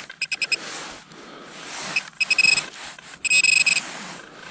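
Handheld metal-detecting pinpointer beeping as it is probed in the dug soil: a fast run of short beeps near the start, then beeps again about two seconds in that merge into a steady tone, and another steady tone of about half a second a little after three seconds, the signal that metal is right at the probe tip.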